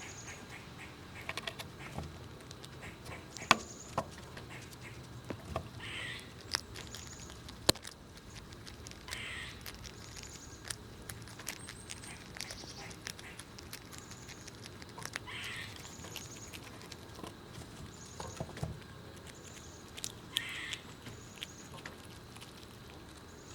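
Squirrels gnawing and cracking nut shells: irregular sharp clicks and cracks, with a few louder snaps. A bird calls several times in the background.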